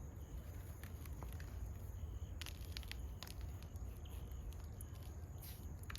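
Hands digging and rustling through loose soil in a container, with scattered soft crackles and clicks over a steady low rumble.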